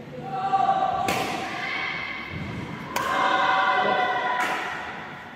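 Badminton racket strikes on a shuttlecock, three sharp hits about a second and a half to two seconds apart in a rally, with long held voices, like singing or chanting, over them.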